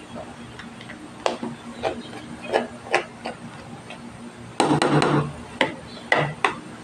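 A blue plastic utensil knocking and scraping against a perforated stainless-steel colander and a plastic tub while potato is mashed. The knocks are irregular, with a longer run of scraping and knocking about five seconds in.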